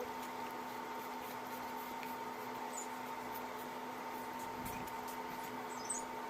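A steady background hum, with a few faint, short, high-pitched chirps now and then.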